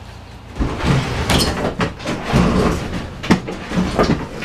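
Irregular knocks, clatter and rustling as a Honda push mower is pulled forward by hand over a rubber floor mat; the engine is not running yet.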